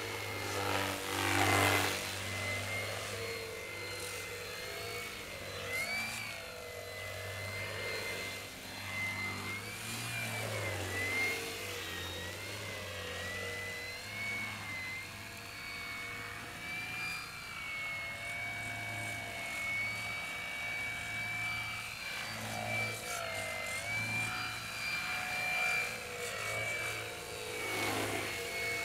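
Brushless outrunner electric motor and 12x6 propeller of a small foam RC airplane whining in flight. The pitch wavers up and down with throttle, with a louder rush of noise about a second in.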